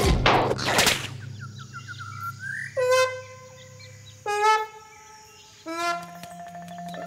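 Cartoon sound effects: a short swoosh, then a rising chirping run and three short pitched calls about a second and a half apart over a low hum. A steady low tone comes in near the end.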